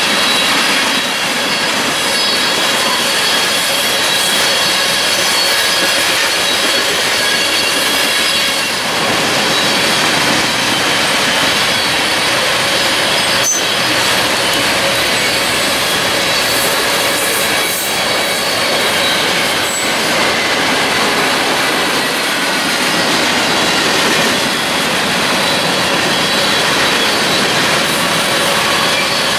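Freight cars (tank cars, covered hoppers and boxcars) rolling past on the rails: a steady loud rush of wheels on track, with thin high-pitched wheel squeals running over it and a few sharp knocks around the middle.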